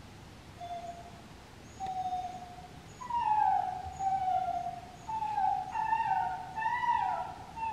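A dog's high whining cries played through a phone's speaker: a string of drawn-out whimpers, each falling in pitch, faint at first and then louder, about one a second. It is a clip of a dog in distress, played to see whether a listening dog will come to help.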